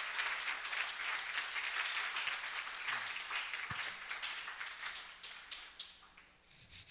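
Audience applauding after a talk, the clapping thinning out and dying away near the end.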